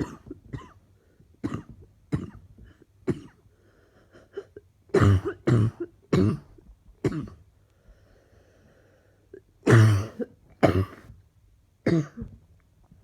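A woman coughing again and again in fits: single coughs in the first few seconds, then harder runs of two or three coughs about five seconds in and again about ten seconds in, with short pauses between. The cough is persistent and keeps coming back.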